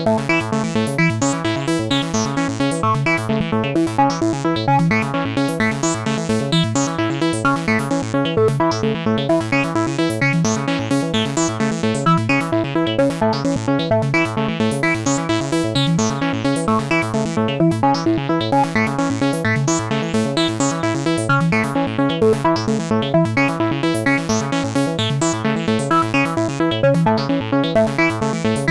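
Electronic ringtone played on the Sytrus software synthesizer: a fast, evenly repeating pattern of synth notes looping steadily.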